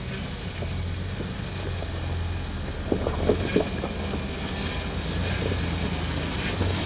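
Toyota Land Cruiser 90's engine running steadily at low, idle-speed revs as the truck crawls through ruts, with a few sharp knocks about three seconds in.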